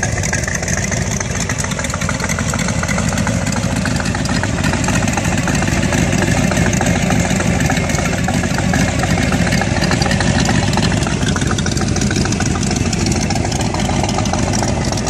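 V8 engine of a Model T roadster hot rod idling steadily and loudly through short open exhaust pipes with no mufflers.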